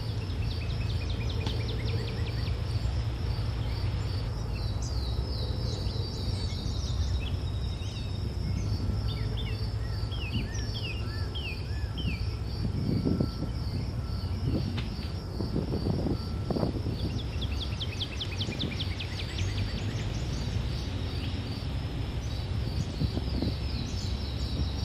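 Forest ambience: an insect chirring steadily in fast, even high-pitched pulses, with runs of quick falling bird chirps now and then and a few soft thumps near the middle, over a constant low rumble.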